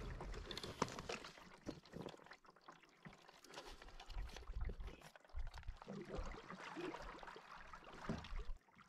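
Canoe paddle strokes in calm lake water: the blade dipping and pulling, with water trickling and dripping off it between strokes, and a few low bumps in the middle.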